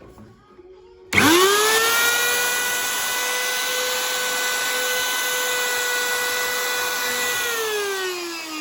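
Single-speed Skil electric router switched on about a second in, its motor spinning up within a fraction of a second to a steady high whine. It is switched off near the end and winds down, the whine falling in pitch.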